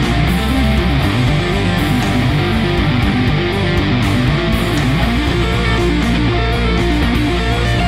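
Multi-string Ibanez electric guitar playing a busy instrumental line, with a heavy bass part and drum hits beneath in a full band mix.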